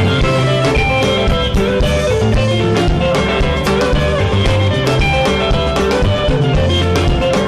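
Live band music: electric guitars playing repeating, interlocking melodic lines over a bass guitar and a drum kit keeping a steady dance beat, in an instrumental passage of a Lingala gospel song.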